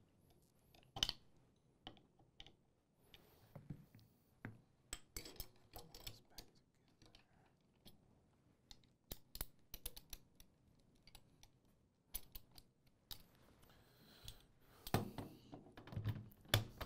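Scattered small metallic clicks and taps of M2 .50-cal machine gun parts being handled as the timing adjustment is tightened down, busier and louder near the end.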